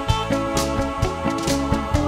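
Background music with a steady beat: held notes over regular drum-like strikes, about two a second.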